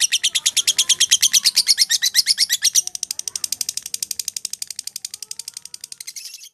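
Lovebird ngekek: one long, unbroken chatter of rapid high chirps, about a dozen a second, in the nonstop 'konslet' style. It thins about three seconds in, then fades and stops near the end.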